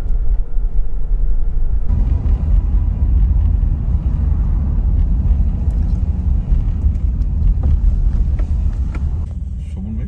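Steady low rumble of a car driving on a city road, heard from inside the cabin, getting louder about two seconds in.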